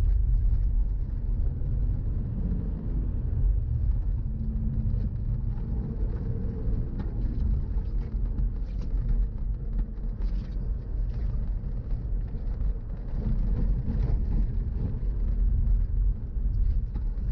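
VW Golf Mk4 driving: a steady low rumble of engine and tyre noise, the engine note rising and falling a little as it goes.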